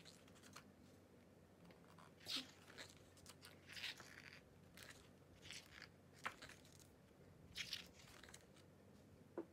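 Pages of a glossy photo book being turned by hand: a string of faint, short paper rustles and swishes, about seven or eight across several seconds.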